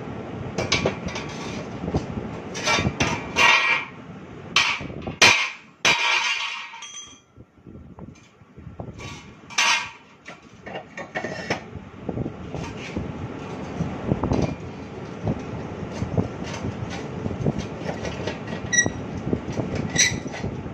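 Irregular metal clanks and knocks as steel pieces for a screw-conveyor flight are handled and struck, over a steady background noise, with a short lull about seven seconds in.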